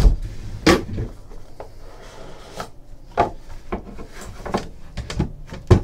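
Cardboard trading-card box being cut open with a box cutter and its lid lifted off: scattered knocks, taps and scraping of cardboard, with the loudest knock near the end.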